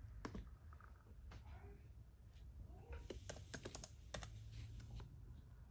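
Faint typing on a late 2009 MacBook's built-in keyboard: a few scattered key clicks, then a quick run of keystrokes from about three seconds in.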